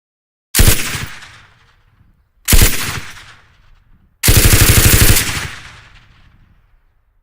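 Machine gun firing on full automatic in three bursts: two short bursts about two seconds apart, then a longer burst of about a second of rapid shots. Each burst trails off in an echo.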